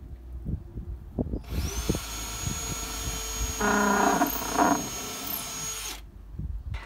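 Cordless power drill driving a screw into the corner of a wooden board frame. It runs steadily for about four and a half seconds, gets louder twice near the middle, and stops suddenly. A few light knocks come before it starts.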